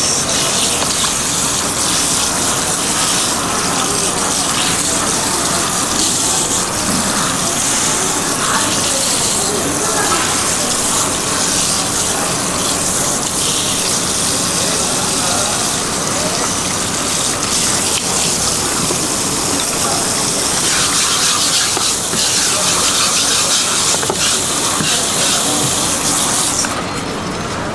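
Running water gushing steadily, cutting off about a second before the end.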